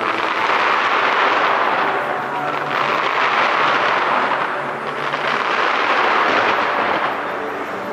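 A dense, continuous fireworks barrage: rapid crackling and popping bursts that merge into one loud rushing din, swelling and easing in about three waves.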